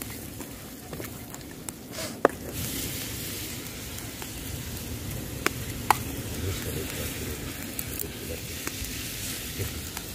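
Chunks of moray eel frying in a pan over a wood fire, sizzling steadily and growing louder about two and a half seconds in as sambal is spooned into the hot oil. A few sharp clicks cut through the sizzle.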